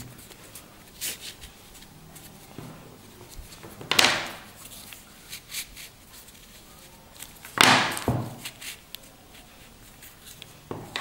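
Handling noise from canvas watch straps with metal buckles being worked in the hands: small clicks and rubs, with two louder sudden knocks about four and seven and a half seconds in.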